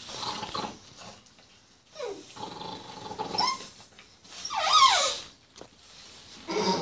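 Several puppies whining and yelping as they jostle together, in a few short cries that slide up and down in pitch; the loudest comes about two thirds of the way in.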